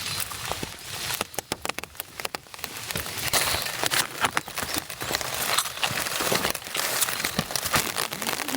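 Wood campfire crackling, with many sharp irregular pops and snaps over a steady hiss.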